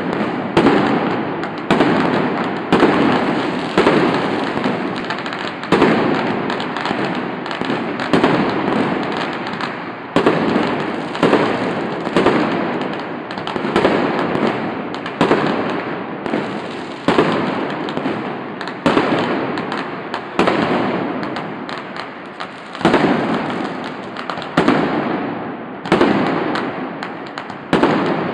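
Fireworks going off in quick succession: a sharp bang about once a second, each fading away before the next one.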